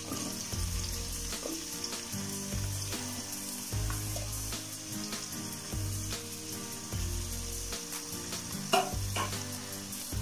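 Sliced onions sizzling in hot coconut oil as they are dropped into the pot, a steady frying hiss, with a sharp knock near the end.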